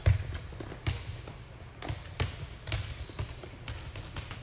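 Volleyballs being struck and bouncing on the indoor court floor: a run of sharp smacks and thuds about two a second, with a few short high squeaks near the end.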